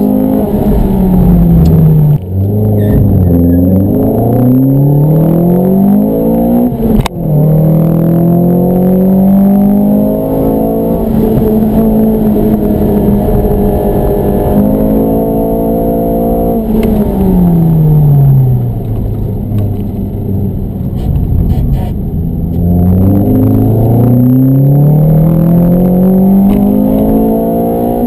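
Ford Fiesta ST Mountune MR200's four-cylinder engine heard from inside the cabin, climbing in pitch through the gears with sudden drops at the upshifts about two and seven seconds in, the second with a sharp click. It falls away for a bend past the middle, then revs up again.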